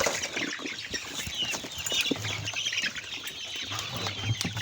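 A flock of six-week-old chickens cheeping and clucking as they are herded back into the poultry house, with wings flapping and scuffling.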